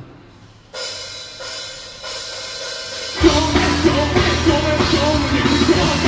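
Live rock band with drum kit and electric guitars played through a PA. A lighter intro comes in about a second in, then about three seconds in the full band comes in together on a loud hit and plays on.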